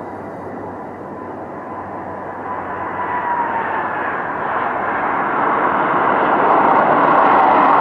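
An airliner's engines, a steady roar with a thin whine that drops slightly in pitch about four seconds in, growing steadily louder as the aircraft approaches.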